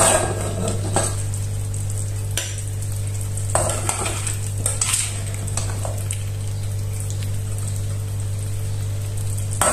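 A slotted steel spoon scraping and knocking against a stainless steel pot as thick curry is scooped out onto a plate, a handful of separate strokes spread through, over a steady low hum.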